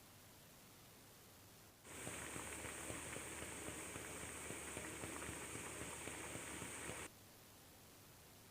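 Food frying in a pan, a dense crackling sizzle that starts suddenly about two seconds in and cuts off abruptly about five seconds later.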